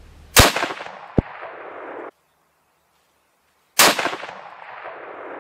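Two shots from a Ruger American 7mm-08 bolt-action rifle, each a sharp crack followed by a long echoing tail, about three and a half seconds apart. A short sharp click comes about a second in.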